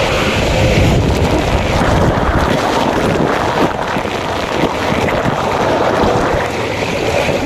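Water rushing and splashing around a rider sliding down a waterslide, with wind buffeting the microphone. The noise is loud and steady throughout.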